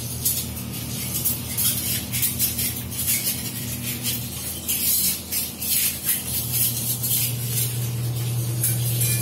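Dishes and utensils clinking and clattering irregularly in a kitchen sink as they are hand-washed, over a steady low hum.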